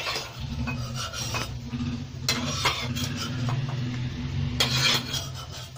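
Spoon scraping scrambled egg out of a frying pan and knocking it into a glass bowl: a run of short scrapes and clinks, the loudest scrape near the end, over a low steady hum.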